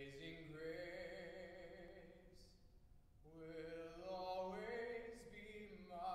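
A male vocalist singing a slow gospel melody with vibrato, in two long phrases with a short breath about three seconds in.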